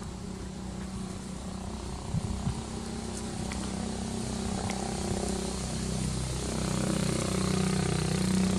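A motor vehicle's engine running steadily, growing louder over the last few seconds. Two short knocks about two seconds in.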